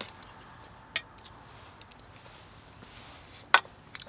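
Eating utensils clinking against stainless steel camp plates: a light click about a second in and a louder clink with a short ring about three and a half seconds in.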